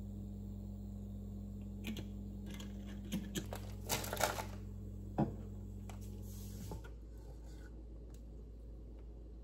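Kitchen handling noises: a plastic bag of salad greens rustling about four seconds in, with scattered light clicks and knocks, including a sharp tick a second later. Under them runs a steady low hum that stops a little before seven seconds.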